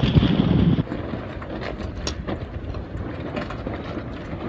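Wind buffeting the microphone aboard a sailboat under sail, cutting off abruptly about a second in to a softer steady rush with scattered light clicks and knocks.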